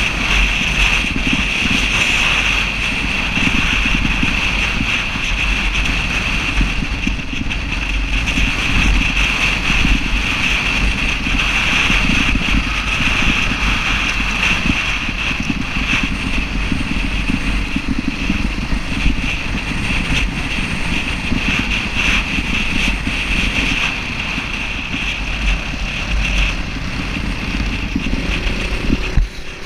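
Enduro motorcycle engine running steadily while riding on a gravel track, with wind buffeting a helmet-mounted camera microphone.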